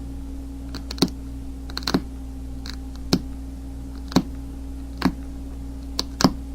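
Flint snapping off in small flakes under a brass pressure-flaking rod: sharp clicks about once a second as each saw-tooth notch is pressed into the edge of a flint blade.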